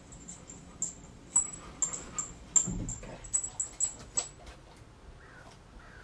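A recording of a fistful of dog tags being shaken, played through a computer speaker: a quick run of about a dozen bright metallic clinks from about one to four seconds in, with a soft low thump near the middle.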